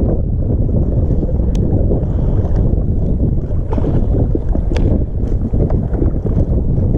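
Wind buffeting the microphone on a kayak at open sea, a steady low rumble, with a couple of short sharp clicks.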